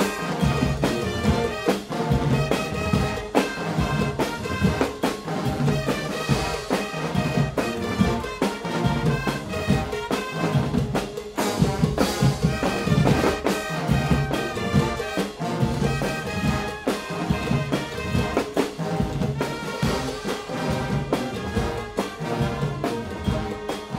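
Guggenmusik carnival band playing live: a massed brass section of trumpets, trombones and sousaphones over a steady beat from drum kits and marching bass drums.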